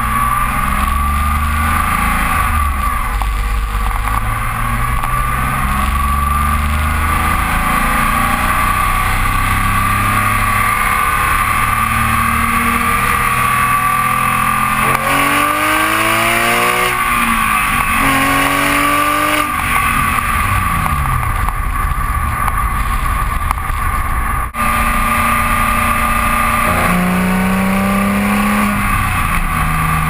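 Porsche 911 GT3's flat-six engine driving the car on the road, under heavy wind and road noise. Its pitch climbs and drops a few times around the middle and climbs again near the end.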